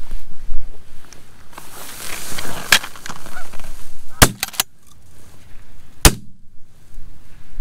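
Goose honking, then two shotgun shots about two seconds apart, fired at a single Canada goose coming into the decoys.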